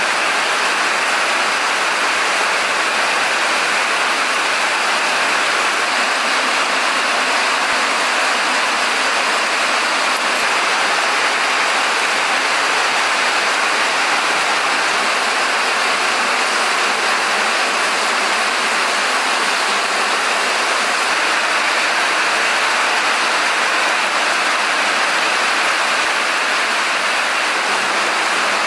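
Steady heavy rain, an even rushing noise that holds at the same level without a break.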